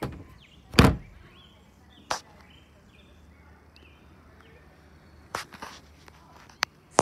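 Plastic wheeled trash cart being handled at close range: a loud hollow thump about a second in, then scattered fainter knocks and clicks of the plastic body and lid.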